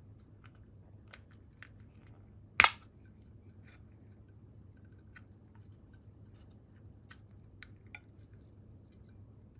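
Aluminium drink can's stay-on pull tab being levered open: a few light metallic clicks of fingers on the tab, then one loud, sharp pop as the seal breaks about two and a half seconds in, followed by more scattered faint clicks.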